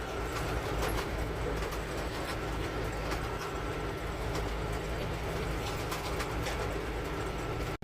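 Steady road and engine noise inside a semi truck's cab while it drives, a constant low rumble with a broad hiss. The sound drops out for an instant just before the end.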